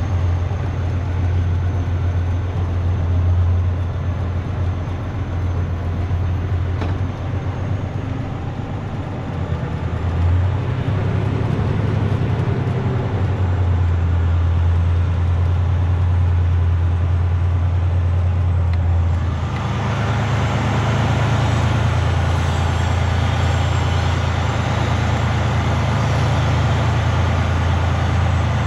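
Freightliner semi truck's diesel engine running with a steady low drone. A little past the middle it turns fuller and louder, as the truck pulls out under more throttle.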